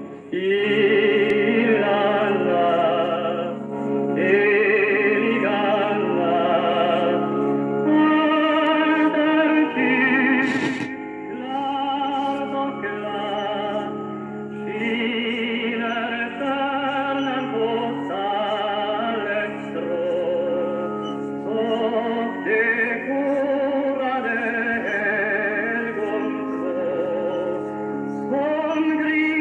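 Opera singing with strong vibrato over instrumental accompaniment, played back from tape through the built-in loudspeaker of a mid-1950s Concerton reel-to-reel tape recorder on a Philips chassis. The sound has little treble.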